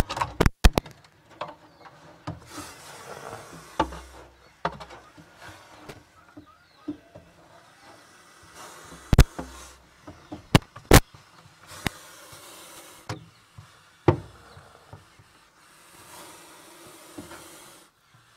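A snake coiled on its eggs in a wire-mesh cage hissing several times, each hiss about a second long. Loud, sharp knocks and clicks come through at irregular moments, from the camera gear bumping the mesh.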